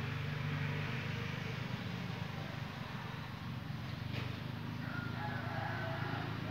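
A motor engine running with a steady low hum.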